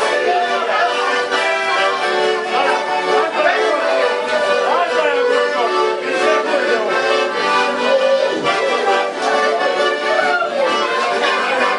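Accordion (sanfona) playing a tune, carrying on without a break.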